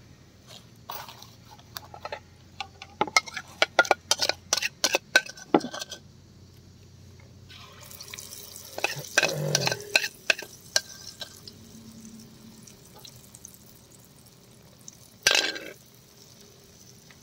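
Metal utensils clinking and tapping against an aluminium frying pan in a quick run of sharp clicks, then a hiss about eight seconds in as pakora batter is spooned into hot oil and starts to fry. A short loud noise comes near the end.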